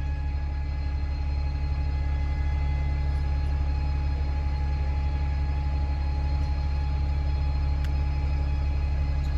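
Steady low rumble with a few faint, even hums above it, unchanging throughout.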